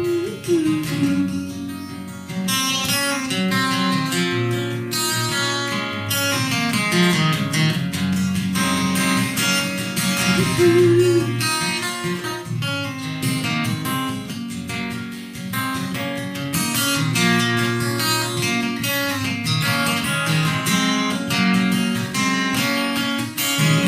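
Acoustic guitar playing an instrumental break between sung verses, strummed chords with picked notes.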